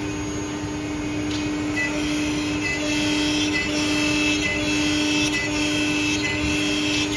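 A 4-head CNC mortising machine running with a steady hum and whir, pulsing about once a second.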